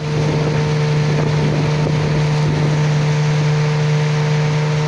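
A small boat's engine running steadily at cruising speed, with water rushing past the hull.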